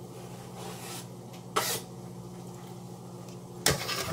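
A steady low hum with one short hiss about a second and a half in, then a clatter near the end as a wooden cutting board and a chef's knife are handled and set down on the counter.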